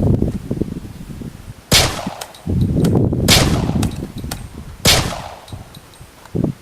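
Three hard blows smashing a projection alarm clock, about a second and a half apart, each a sharp crack with a short ringing tail, with low rustle and handling noise between.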